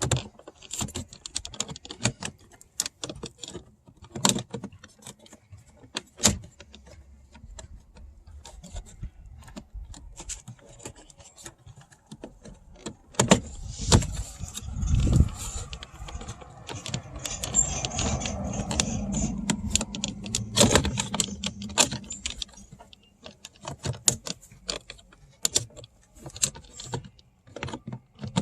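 Plastic door trim panel of a 2009 Toyota Matrix being handled and pushed back into place on the door: many sharp clicks, knocks and rattles of plastic, with a busier stretch of rubbing and knocking in the middle.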